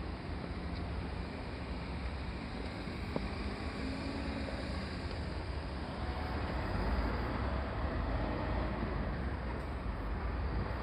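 Steady outdoor background noise with a low, fluctuating rumble of wind buffeting the microphone, with a faint click about three seconds in.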